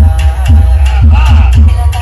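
Music with a heavy bass line and a steady beat.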